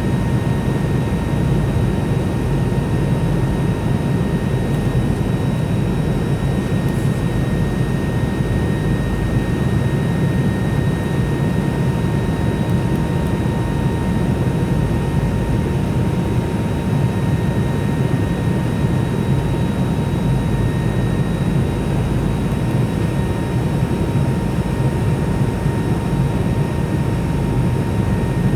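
Delta MD-90's two IAE V2500 turbofan engines running steadily: a deep rushing noise with a constant high whine over it, unchanging throughout.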